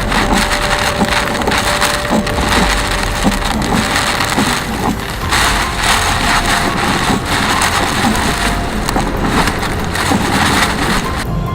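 Hail pelting a car, a dense, unbroken clatter of countless small impacts on the body and glass.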